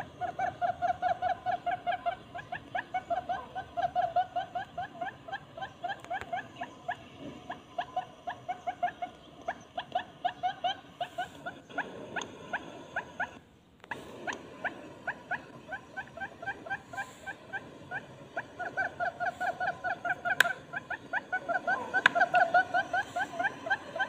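Barred buttonquail calling: long runs of short, low hooting notes, several a second, with a brief break about halfway through. It is a lure call that draws in both male and female buttonquail.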